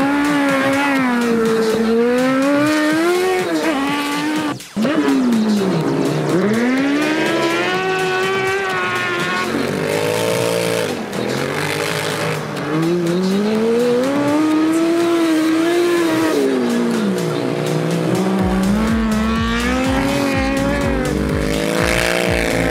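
Competition engine revving hard and falling back again and again as racing vehicles slide through the corners of an ice track, with an abrupt break about four and a half seconds in.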